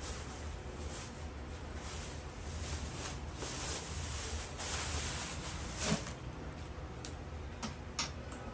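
Plastic bags and packaging rustling as they are handled, in swells of crinkling, with a soft knock about six seconds in and a few light clicks near the end.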